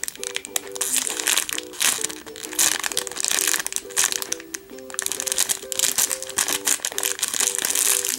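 Clear plastic bag crinkling as a squishy toy is handled in its packaging, with irregular rustles through the whole stretch. Background music with a simple melody of short notes plays underneath.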